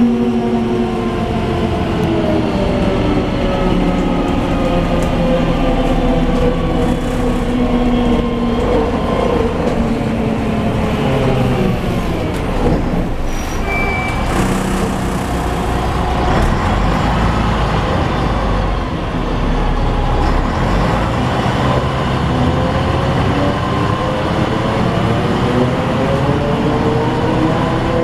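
Ikarus 260.46 city bus heard from inside, its diesel engine and drivetrain running under way. Their whine falls in pitch over the first dozen seconds as the bus slows, then climbs again as it picks up speed. A short high beep sounds about halfway through.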